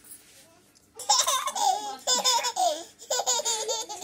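A toddler laughing in a run of short, high-pitched bursts, starting about a second in.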